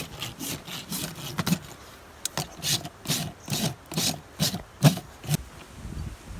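Farrier's rasp filing a horse's hoof in a run of repeated rasping strokes, about two a second, that stops about five seconds in.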